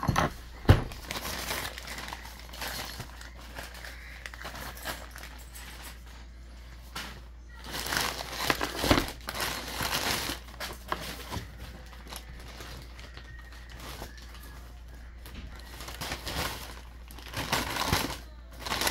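Plastic mailer bag crinkling and rustling as it is handled and opened, in uneven spells, with one sharp knock about a second in.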